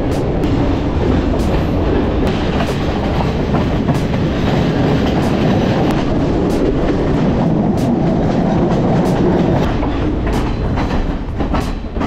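Sri Lanka Railways Class S14 diesel multiple unit running along the track, heard from an open carriage door: a loud, steady rumble of wheels on rail with wind, broken by the clickety-clack of the wheels passing over rail joints several times.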